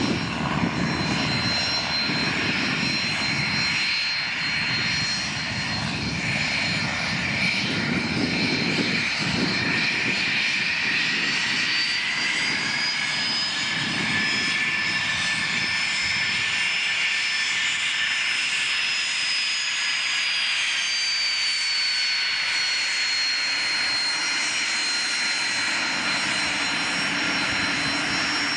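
Twin rear-mounted turbofan engines of a Cessna Citation business jet running at taxi power with a steady high whine over a low rumble. The whine rises in pitch around the middle and falls back near the end.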